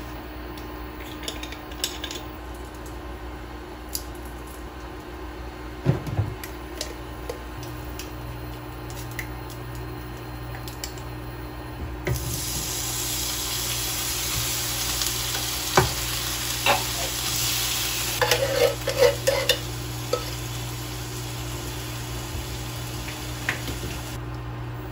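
A silicone spatula stirs and scrapes chopped filling in a nonstick frying pan on an induction hob, with scattered light clicks. About halfway through, a louder steady sizzling hiss starts suddenly as canned whole tomatoes are poured into the hot pan. A few sharp knocks of the spatula against the pan follow.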